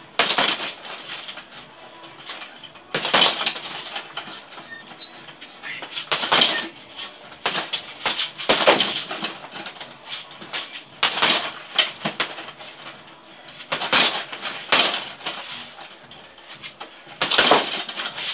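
Boxing gloves punching a hanging RDX heavy bag in short combinations: a quick run of thuds every two to three seconds, with brief pauses between flurries.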